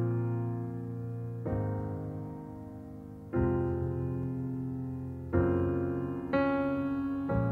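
Slow solo piano music: sustained chords struck every one to two seconds, each ringing and fading before the next.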